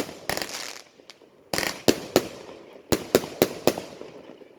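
Fireworks going off: a run of sharp bangs, some followed by a crackling hiss, with several bangs in quick succession about three seconds in.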